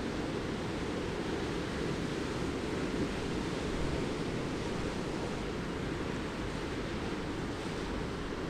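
Steady rush of wind and water, deepest in the low end, with no distinct events.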